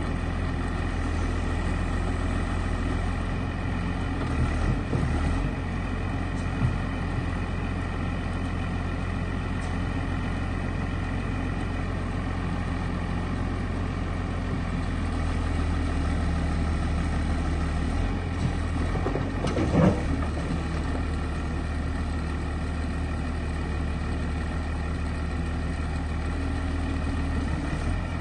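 Huddig 960 C6 backhoe loader's diesel engine running steadily, with a few short knocks or clunks, the loudest about twenty seconds in.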